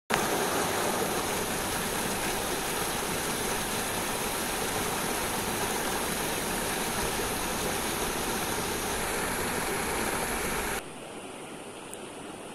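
Stream water rushing over rocks in small rapids, a steady loud rush. Just before the end it cuts abruptly to a much softer, gentle river flow.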